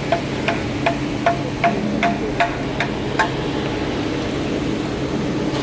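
Concrete mixer truck's engine running steadily, with a quick run of evenly spaced sharp clicks, about two or three a second, that stops a little after three seconds in.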